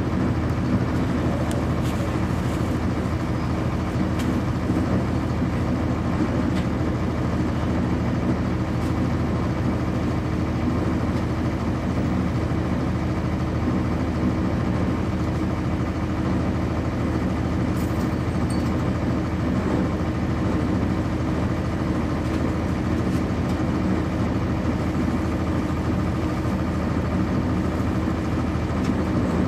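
Cummins ISC inline-six diesel engine of a 1999 NovaBus RTS transit bus, heard from inside the bus, running at a steady speed with a low, even drone and no change in pitch. A few faint clicks sound over it.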